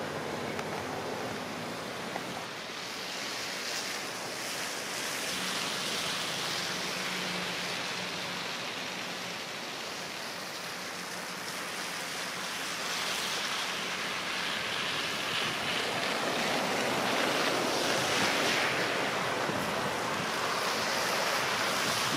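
Traffic and a snowplowing wheel loader on a slushy street: a steady hiss of tyres and plow blade through wet snow over the low hum of the loader's diesel engine, getting louder in the second half as the loader and cars come close.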